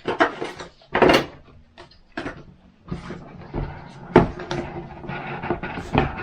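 Hard plastic parts and packaging being handled during an unboxing: several sharp knocks as pieces are set down and lifted out of the box, with lighter rustling between them.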